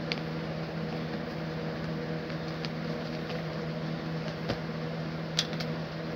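A steady, even motor hum from a running appliance, with a few light handling clicks, the clearest about four and a half and five and a half seconds in.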